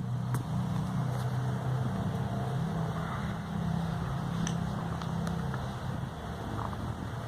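A sleeping pet making a steady, low rumbling noise in its sleep.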